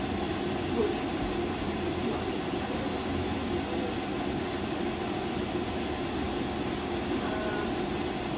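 Minced meat frying in a pan on the stovetop, under a steady low hum and rushing noise.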